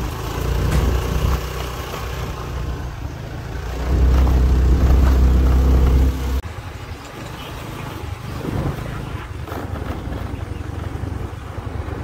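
A motor vehicle's engine running, with heavy low rumble on the microphone. It swells louder for a couple of seconds, then drops off abruptly about six seconds in.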